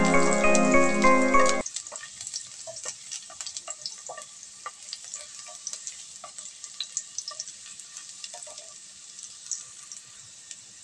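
Music playing, cut off abruptly about a second and a half in. Then chopped garlic sizzling in oil in a frying pan, with light crackling and a utensil stirring against the pan.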